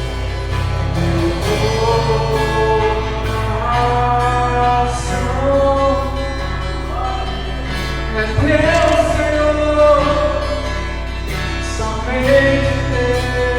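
Worship music: a man singing a slow melody over acoustic guitar, picked up on a phone microphone.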